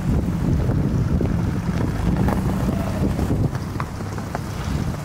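Wind buffeting the microphone, a steady low rumble, over the hum of car engines moving slowly past on a snowy street.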